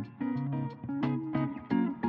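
Background music on guitar: a quick run of plucked notes over a low sustained bass note.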